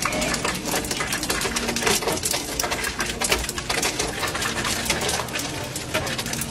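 Ice cubes dropping from a Hoshizaki cube ice maker's evaporator and clattering onto the ice in the bin, a rapid, continuous rattle of small knocks. The machine is harvesting ice again after its frozen evaporator was thawed.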